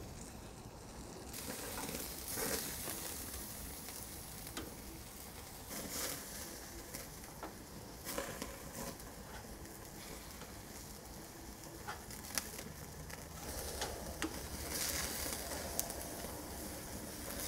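Skewers of marinated beef and tomato halves sizzling over an open-flame grill fire, with a steady hiss and scattered crackles and pops.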